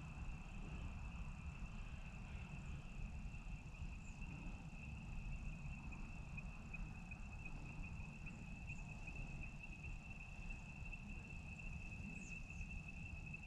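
Quiet open-field ambience: a steady, thin high-pitched tone and a low rumble, with a faint chirp or two.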